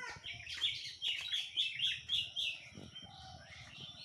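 A small bird chirping, a quick run of about eight short high notes repeated a few times a second, fading out after about two and a half seconds.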